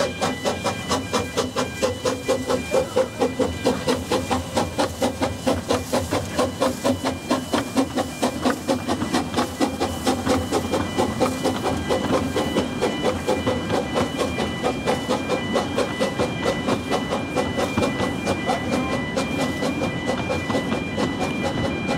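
Quarry Hunslet 0-4-0 saddle-tank steam locomotive No. 3 'Dolbadarn' working a train, its exhaust chuffing in an even rhythm of about three to four beats a second. The beats are sharpest in the first half and grow less distinct later on.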